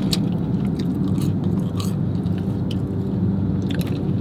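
Someone chewing food close to the microphone, with soft crunches and short wet mouth clicks scattered through, over a steady low hum inside a car.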